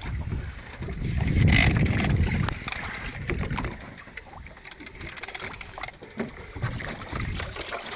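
Sea and wind noise aboard a small boat: water moving against the hull with wind on the microphone, swelling to a loud rush about a second in, then easing to a lighter, choppy crackle.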